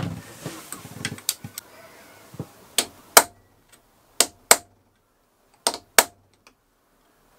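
Hammer blows on a drift, driving the stuck water distribution pipe out of a Volvo Penta inboard marine diesel. About eight sharp strikes, irregularly spaced and several in quick pairs.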